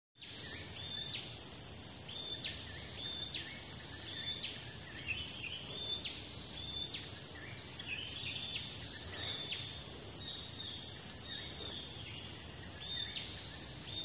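A steady high-pitched insect chorus, with a bird giving a short falling call about once a second over it.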